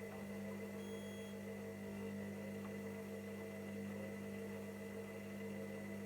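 Hoover washing machine running with a steady electrical hum, with one short high electronic beep about a second in.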